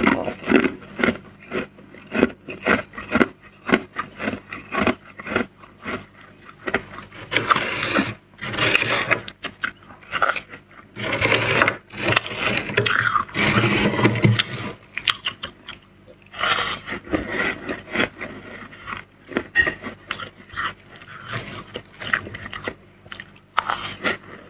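A spoon scraping and scooping into thick, icy freezer frost: many short crunchy scrapes, two or three a second, with a few longer continuous scrapes in the middle.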